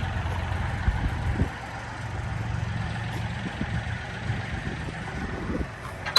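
An engine idling steadily with a low rumble, with a few soft knocks and a sharp click right at the end.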